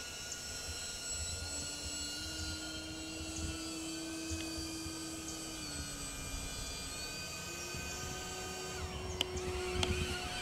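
DJI Avata's electric motors and propellers whining steadily, with several tones shifting pitch independently as the drone changes throttle. There is a sharper drop in pitch about nine seconds in.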